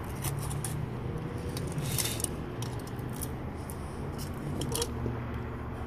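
Foil wrapper of a Kinder Surprise chocolate egg crinkling as it is peeled off by hand, in irregular short crackles, over a steady low hum.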